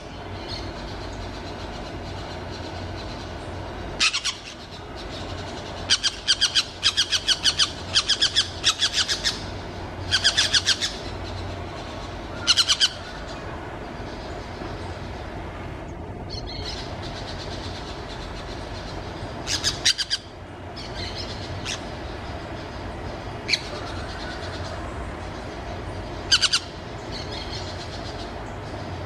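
Wild orange-chinned parakeets (Brotogeris jugularis) calling in shrill chattering bursts, with a long run of rapid repeated notes from about six to nine seconds in and scattered single calls after, over a steady low background noise.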